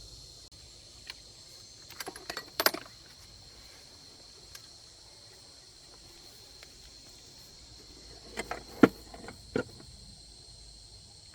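Two short clusters of metallic clinks and clanks, about two seconds in and again near nine seconds, over a steady high chirring of insects.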